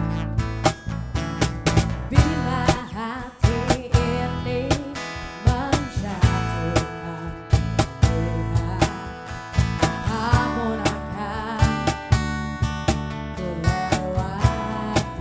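Music: guitar with a steady drum beat.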